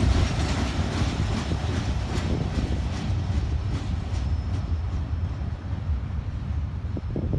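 Freight cars rolling past on the rails and moving away, a steady rumble of wheels that thins and fades over the last few seconds.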